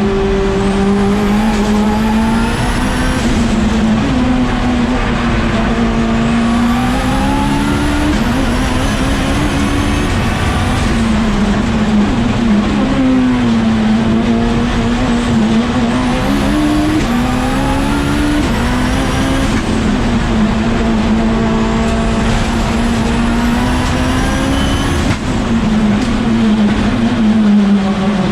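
Global Aircraft Services Mitsubishi Lancer Evolution time attack car running hard on a flying lap, its engine note climbing and falling again and again through gear changes and corners. A high whine comes and goes with it.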